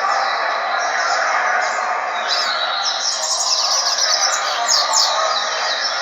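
Double-collared seedeater (coleiro) singing: quick, sharp chirping notes in rapid runs, strongest in the second half, over a dense steady background of noise and other bird chatter.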